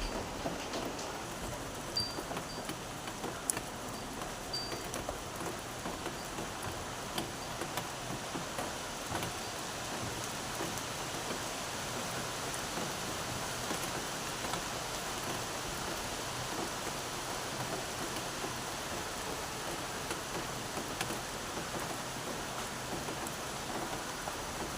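Steady rain falling, with scattered drops tapping sharply on a surface.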